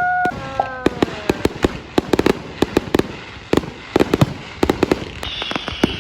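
Aerial fireworks going off: a dense run of sharp crackles and bangs. A held tone slides down early on, and a high falling whistle starts about five seconds in.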